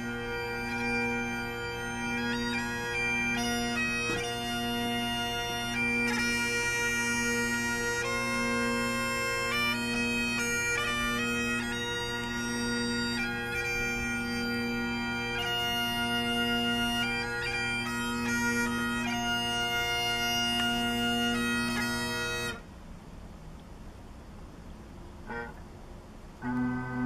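Bagpipes playing a tune of held notes over their steady drone. The tune stops abruptly about 22 seconds in, and after a few quieter seconds the pipes start up again near the end.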